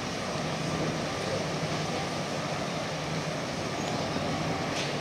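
Mangusta 108 motor yacht's engines running at low speed while she manoeuvres astern into her berth: a steady low hum under a wash of harbour noise.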